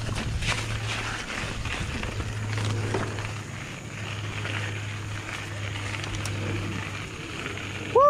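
Santa Cruz Nomad mountain bike riding down a rocky dirt trail: tyre noise on dirt and roots with frequent small clatters and knocks from the bike, over a steady low hum. At the very end the rider gives a short whoop.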